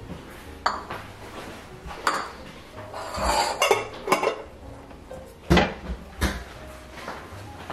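Cookware and utensils clattering as they are handled: separate knocks and metallic clinks, a busier run of clinks in the middle, and the loudest knock a little over halfway through.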